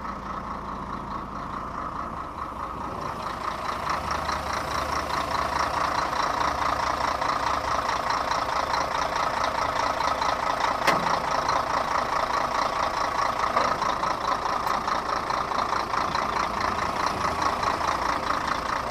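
Scania 113 truck's diesel engine running at a stop, growing louder over the first few seconds, with a steady fluttering hiss-like noise on top. This is the strange noise that the driver traces to a leaking or loosened intercooler hose. A single sharp click sounds about eleven seconds in.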